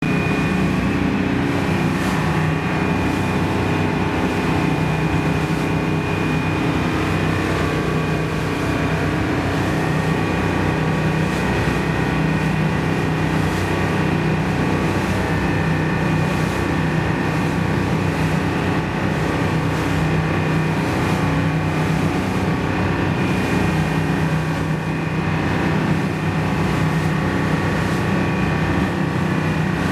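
Whale-watching boat's engine running at a constant speed, a steady drone with an even hum and no change in pitch.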